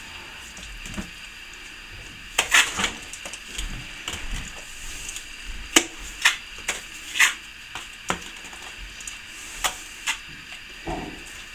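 Steel plastering trowel working wet sand-and-plaster mix, giving irregular scrapes and sharp clicks of metal against the hawk and the wall, with the loudest strokes near the middle.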